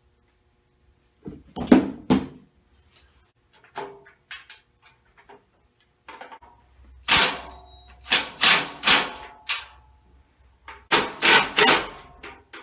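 Sheet-metal parts of a welding cart knocking and clanking as it is put together, with a faint ring after the blows. There is a loud clank about seven seconds in, and then two quick runs of about four metallic knocks each.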